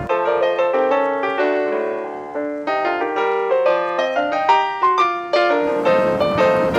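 Background piano music: a brisk run of struck notes, several a second, each ringing briefly and fading.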